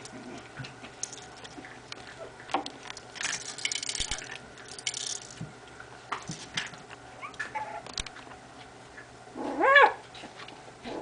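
Bichon Frise puppies scuffling among plush toys on a play mat, with scattered light clicks and rustling, then one short yelp rising in pitch near the end.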